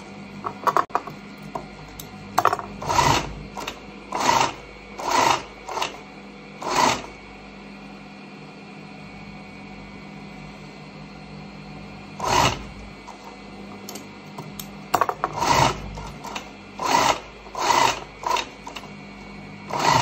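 Industrial post-bed sewing machine stitching a strap for a hawai chappal upper in short runs, each under a second. The runs come in two bunches with a quiet stretch of about five seconds in the middle, over a steady hum.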